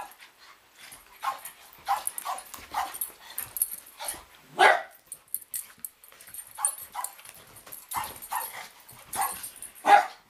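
A Scottish terrier puppy and a Lab mix play-fighting, giving a string of short barks and yips. The loudest come about four and a half seconds in and just before the end.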